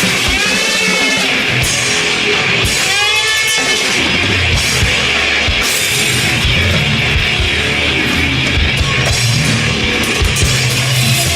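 Loud live rock music: heavily distorted electric guitar over drums, with wailing, sliding high notes in the first second and again around three seconds in.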